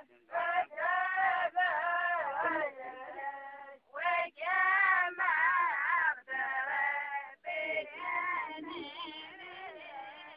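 A single voice singing Socotri poetry, unaccompanied, in drawn-out melodic phrases with short breaks between them.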